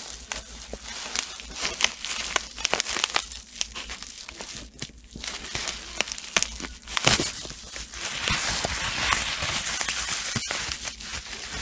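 Plastic bubble wrap and packaging being handled and pulled apart by hand: crinkling and rustling with irregular sharp crackles, turning into denser, continuous rustling after about eight seconds.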